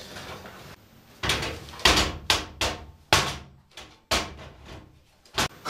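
A series of sharp wooden knocks and clunks, about seven over a few seconds, as a wooden longboard deck and tools are handled and set down on a Workmate bench.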